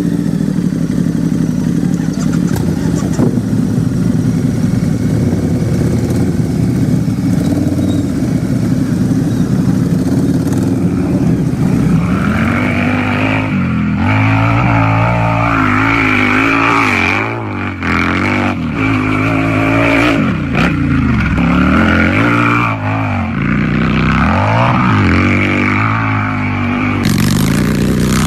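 Harley-Davidson motorcycle's V-twin engine idling steadily. About twelve seconds in, it is revved repeatedly, the pitch rising and falling with each blip of the throttle.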